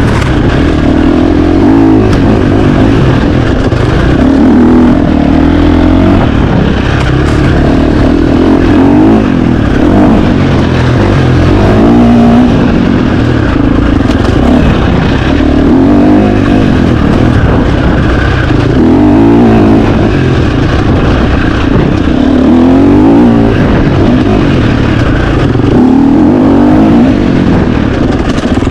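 2025 KTM 350 XC-F four-stroke single-cylinder dirt bike engine revving hard under race riding, its pitch climbing and dropping every second or two as the throttle is opened and shut through the gears.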